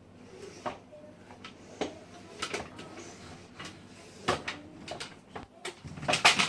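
Irregular knocks and clatters of hard household objects being handled and bumped, a few seconds apart, with a quick flurry of louder knocks near the end.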